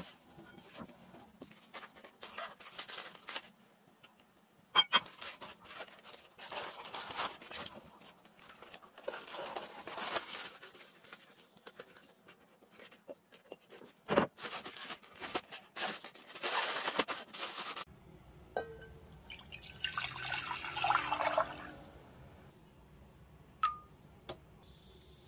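Hands tossing chopped vegetables in a glass bowl and packing them into a plastic zipper bag, with rustling and crinkling. About three-quarters through, water pours into an enamel pot, and a small stock tablet drops in with a short ping near the end.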